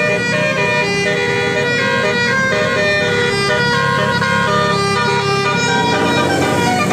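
A bus's 'basuri' telolet musical horn playing a melody of stepped notes over the low rumble of the bus.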